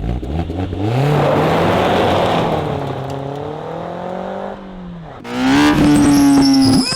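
Suzuki Jimny JB74's 1.5-litre four-cylinder engine heard through its exhaust: it accelerates hard, holds, and falls off. Then, about five seconds in, a steady high-rpm rev is held for over a second.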